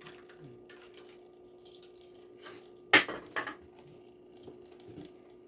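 Handling of die-cast toy car packaging: scattered light clicks and rustles, with a sharp crackle of the packaging about three seconds in, over a steady low hum.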